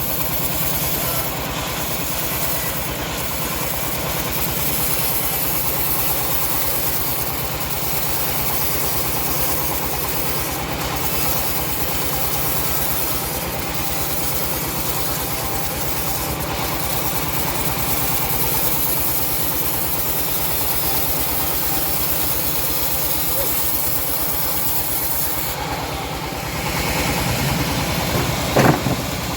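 Homemade bandsaw mill running steadily, its blade hissing as it saws through a teak log. Near the end the cutting hiss stops and a brief loud clatter follows.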